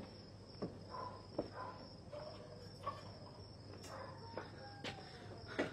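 Crickets chirping in a steady, high night chorus, with a few scattered soft thumps.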